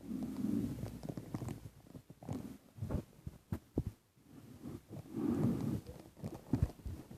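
Close handling noise of blind bag packets being handled and opened: low rubbing and rustling, with many short sharp clicks and crinkles scattered throughout.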